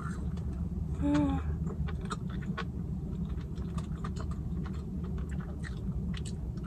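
A person chewing a slice of pepperoni and jalapeño pizza close to the microphone: a steady run of small wet mouth clicks and smacks over a low hum, with a brief hummed sound about a second in.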